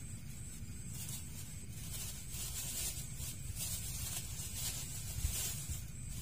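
Thin plastic bag crinkling and rustling as it is unfolded and handled, a run of crackles from about two seconds in until near the end, over a steady low rumble.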